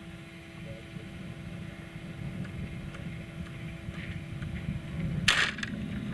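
Jigging JawJacker automatic hook setter tripping: about five seconds in, a sudden loud snap as its spring-loaded arm flips the rod upright to set the hook on a biting fish, followed by a couple of small clicks, over a steady low rumble.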